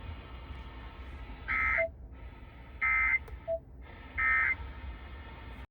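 Emergency Alert System end-of-message code: three short bursts of SAME digital data tones, a rapid two-pitch warble, about 1.3 seconds apart, over steady radio hiss. It marks the end of the flash flood warning broadcast.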